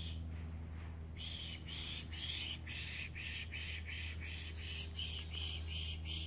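A person pishing: a quick run of breathy "psh" hisses, about three a second, starting about a second in and cutting off at the end, a birder's call to draw black-capped chickadees in.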